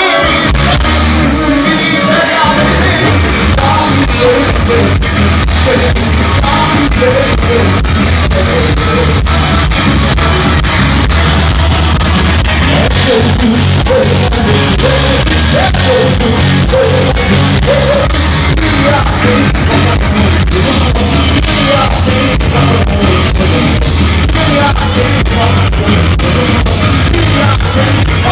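Live rock band playing loud, with drums, guitars and a singer.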